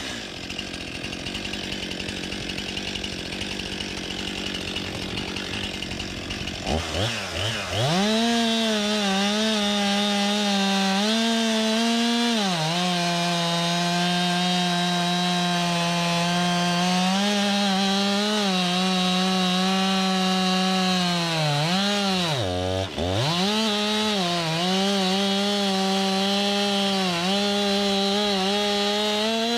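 STIHL MS 261 chainsaw revving up about seven seconds in and then running at high speed, its pitch sagging at times as it is loaded in the cut. Late on it briefly drops off the throttle and comes straight back up. Before the saw revs, a steady rough noise.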